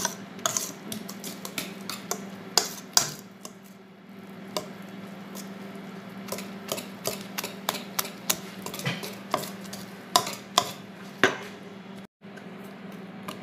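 Wire balloon whisk beating cake batter in a mixing bowl by hand, its wires clicking and tapping irregularly against the bowl's sides, with a wet stirring sound between the taps.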